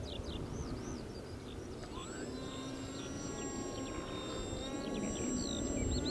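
Faint whine of the Polaris foam model plane's motor overhead, with several tones that shift in pitch and grow louder toward the end, over a steady wind rumble on the microphone. Birds chirp in quick repeated notes near the end.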